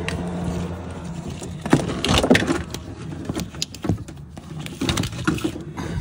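Irregular clicks, rattles and rustling of corrugated plastic wire loom and plug connectors being handled and tucked into place close to the microphone.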